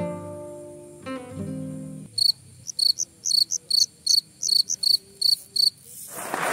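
Acoustic guitar notes ring out and fade, then a cricket chirps in a fast, regular series for nearly four seconds. Shortly before the end, applause breaks in suddenly and loudly.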